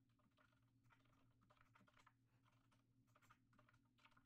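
Faint typing on a computer keyboard: quiet, irregular key clicks over a low steady hum.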